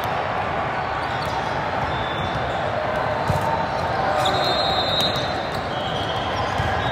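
Steady din of a large hall full of volleyball courts: volleyballs being hit and bouncing, with many voices blending into a general murmur, and a sharper ball hit about three seconds in.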